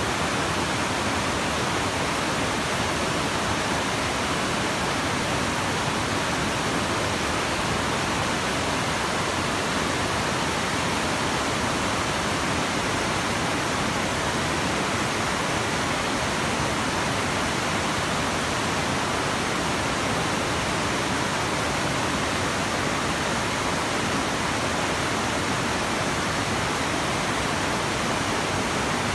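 Whitewater of the Russian River Falls rushing over rock ledges: a steady, unbroken rush of water noise.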